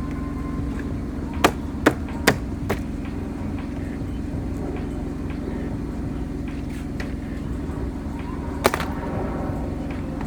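Plastic trim clips snapping into place as a car door trim piece is pressed back on: four sharp snaps about 0.4 s apart starting about a second and a half in, then one more near the end, over a steady low hum.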